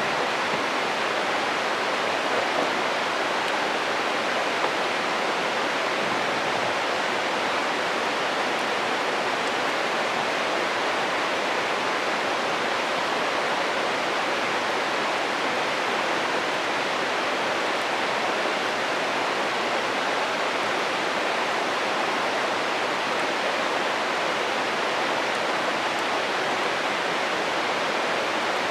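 A river stream rushing steadily, a continuous even rush of water.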